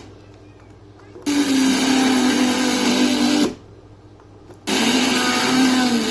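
FM radio sound playing through a small home-theatre satellite speaker, cutting in twice for about two seconds each and dropping out sharply in between, as the speaker is connected to the amplifier's outputs in turn.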